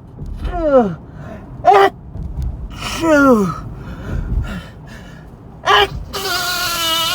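A man sneezing several times in a row, loud sneezes a second or two apart, with gasping breaths between them and a drawn-out gasp near the end.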